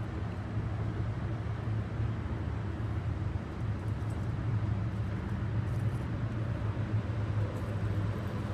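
Steady low hum over an even background rumble, like a running machine or road traffic.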